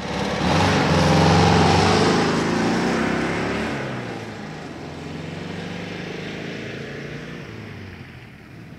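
Motor vehicle driving off. The engine noise comes in suddenly, is loudest in the first couple of seconds, then fades away.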